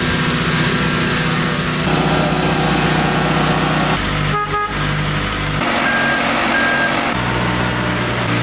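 Boatyard travel lift's engine and hydraulic winches running as it lifts a boat in its slings, the engine note stepping to a new pitch several times as the load and speed change. Two short high beeps sound a little past the middle.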